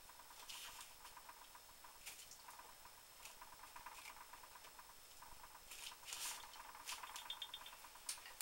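Faint, scattered rustles of fingers pressing and rubbing a glued cardstock panel down onto a card base.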